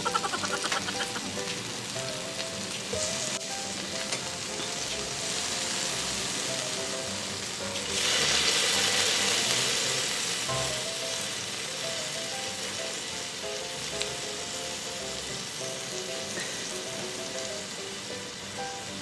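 Beef steak sizzling on a hot electric griddle. The sizzle swells about eight seconds in, when freshly cut pieces go onto the hot plate, then settles back to a steady frying hiss.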